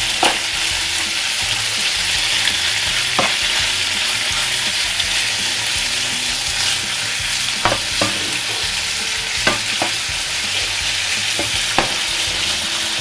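Pieces of beef frying in a pan with a steady sizzle, stirred with metal tongs that click against the pan a handful of times.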